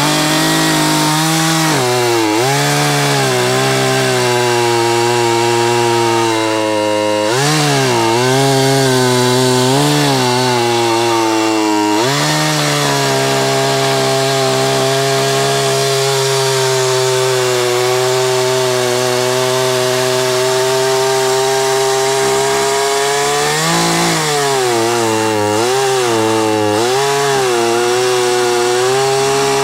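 Craftsman two-stroke gas chainsaw running at high revs while cutting through a log, its engine note dipping and recovering several times as the chain loads in the wood. The saw is running on straight gas with no two-stroke oil mixed in and no air filter.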